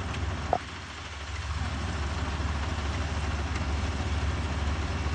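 Kubota ER470 combine harvester's diesel engine running with a steady low rumble, getting somewhat louder after the first second and a half. A single short, sharp sound stands out about half a second in.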